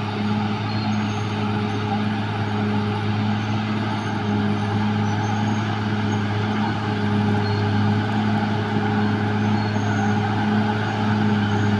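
Caterpillar D6R XL bulldozer's diesel engine running steadily.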